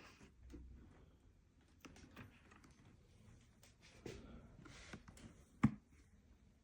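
Faint handling noises: soft rustles and light clicks. One sharper knock comes about five and a half seconds in.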